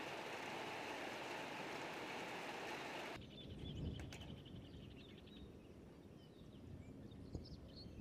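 Outdoor ambience: a steady hiss, then about three seconds in an abrupt change to a quieter low wind rumble with faint bird chirps.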